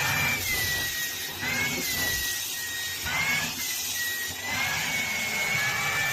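A motor-driven appliance running steadily, its whine wavering slowly up and down in pitch over a rushing hiss.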